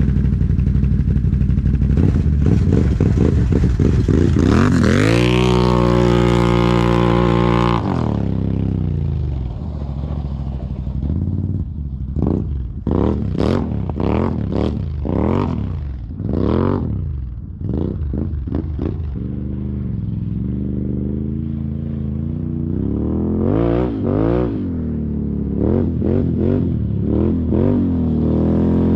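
Can-Am Renegade 1000's V-twin engine through an aftermarket RJWC exhaust, accelerating away hard with the revs climbing for several seconds, then a string of quick rev-ups and drops further off. Near the end it revs up again and grows louder as the quad comes back.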